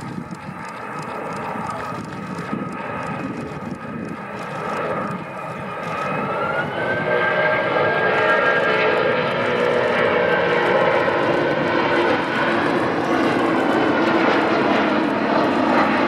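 Airbus Beluga XL's two Rolls-Royce Trent 700 turbofans running during a low gear-down pass, growing steadily louder. About six seconds in, a whine rises in pitch as power comes up for the climb-away, and the roar stays at its loudest after that.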